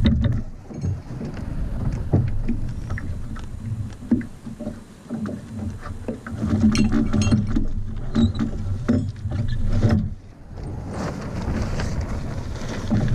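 Water slapping against the hull of a small wooden sailing dinghy, with scattered knocks and clicks from the spars and rigging as the lug sail is lowered. Near the end comes a rustle of the sailcloth coming down.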